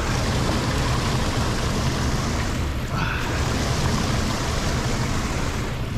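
Steady rushing of water pouring into a debris-clogged lake drain grate, over a low rumble.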